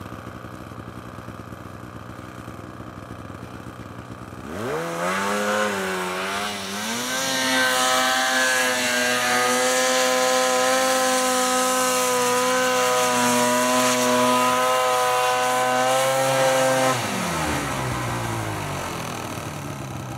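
Snowmobile engine idling low, then revving up about four seconds in and, after a brief waver, held at high revs for about ten seconds as the sled climbs through deep snow, before backing off to a lower note near the end.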